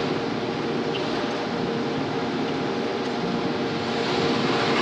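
Gardner grinding machine running steadily with coolant spraying, as a steel knife blank held in a jig is ground down a few thousandths at a time.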